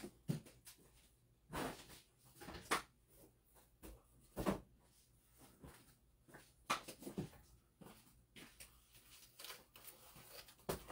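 Handling noises: scattered soft knocks and rustles of objects being moved about, with a few louder thumps spread through.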